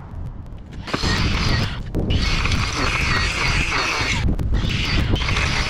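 Cordless stick edger's spinning blade cutting through turf and soil along a concrete footpath edge, a rough grinding noise in three spells with short breaks between, the first starting about a second in.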